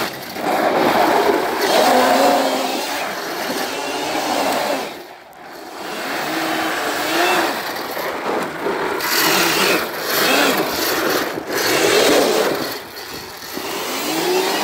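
Electric quad's QS180 motor whining, rising and falling in pitch with the throttle, as the spinning tires spray gravel and sand. The power drops off briefly about five seconds in, then picks up again.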